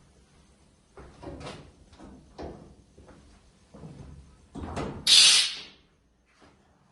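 A few knocks and clatters, then a short loud hiss of compressed air, under a second long, about five seconds in.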